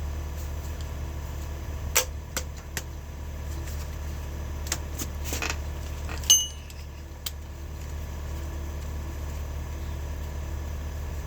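Metal clinks and knocks, as from hand tools working on engine parts, over a steady low hum. The clicks are scattered through the first half, and a single ringing metallic ping comes about six seconds in.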